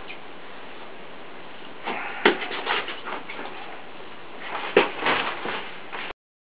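Knife blade cutting the rubber seal between a glass pane and its metal door frame: two spells of short scraping and clicking, about two seconds in and again around five seconds, over a steady hiss. The sound cuts off suddenly near the end.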